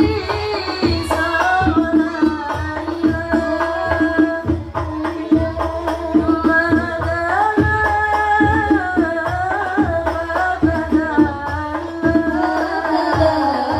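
A group of women singing together into microphones over a sound system, with hand drums beating a steady rhythm under the melody.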